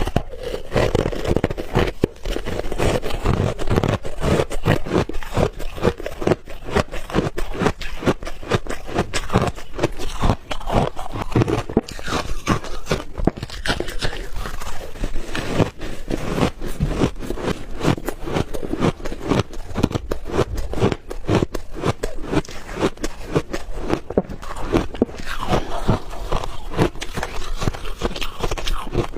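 Refrozen ice balls being bitten and chewed close to the microphone: a dense, unbroken run of sharp crunches and cracking.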